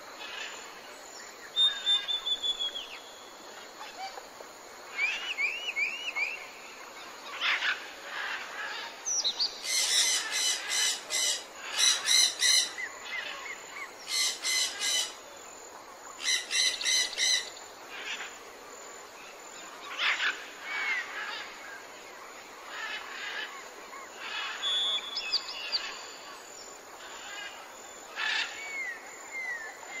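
Several wild birds calling over a steady faint background hiss: scattered short whistled and sliding chirps, and about a third of the way in, four bursts of rapid repeated notes.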